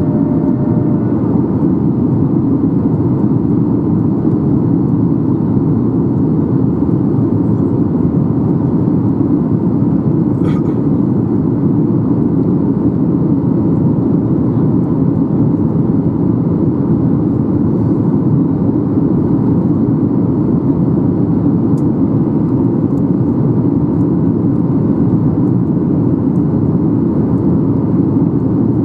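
Steady cabin rumble inside a Boeing 737-800 in flight, the engines and the airflow heard from a window seat, with a faint steady tone above it. One faint click comes about ten seconds in.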